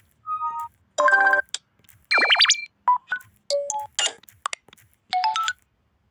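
A rapid string of short electronic screen-reader sound effects from a phone's sound theme: brief chimes, beeps and quick pitch sweeps, about a dozen, one after another with short gaps.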